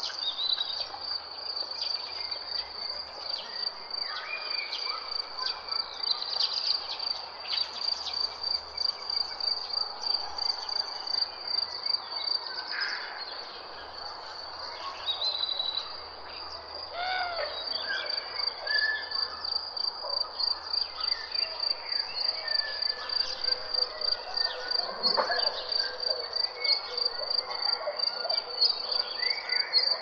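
A steady, rapidly pulsing high insect trill, with scattered bird chirps and calls over it.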